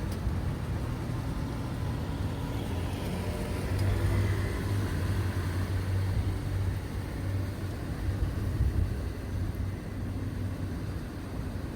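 Road traffic: a motor vehicle's engine running close by, a steady low rumble that swells about four seconds in.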